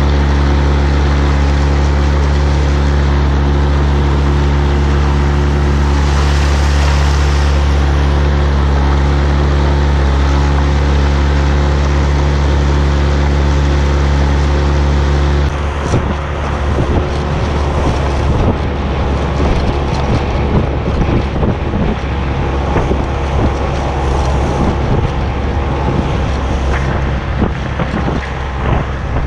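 Tohatsu 9.8 hp outboard motor running at a steady speed, pushing an inflatable boat along. About halfway through, wind starts buffeting the microphone in gusts, breaking up the motor's drone.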